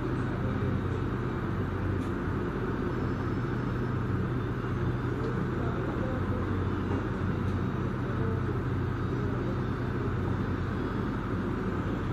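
Steady low machine hum with a dense rumble underneath, unchanging throughout.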